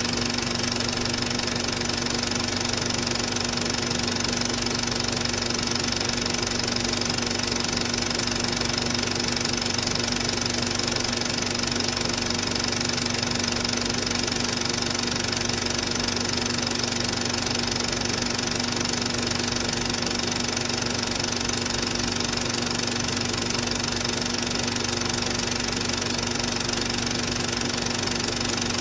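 Cine film projector running, a steady mechanical whir and clatter with a constant hum that does not change.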